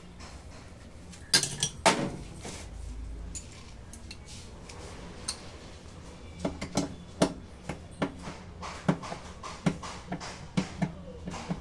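Metal clinks and clicks of a socket on a T-wrench working against nuts and the metal underside of a washing machine as the motor mounting nuts are undone: a few sharp clinks about two seconds in, then an uneven run of clicks, two or three a second, from about halfway.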